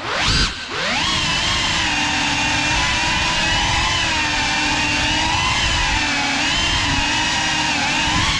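Cinewhoop FPV drone's brushless motors and ducted propellers whining. The pitch drops and climbs sharply in the first second as the throttle is chopped and punched, then holds a steady whine that wavers gently with small throttle changes.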